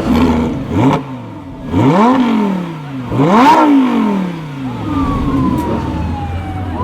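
Lamborghini Huracan LP610-4 Spyder's 5.2-litre V10 revved while standing: a short blip about a second in, then two big revs that climb quickly and fall back slowly, near two and three and a half seconds. A siren wails in the background near the end.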